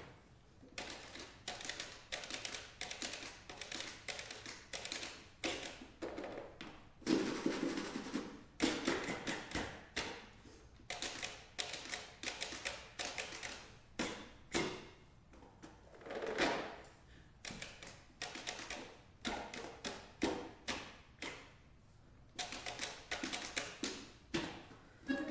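Accordion played with extended technique: fast, irregular clicking and tapping on its keys and buttons in runs of several clicks, with no pitched notes. A couple of short rushing sounds come in around a third of the way in and again past the middle.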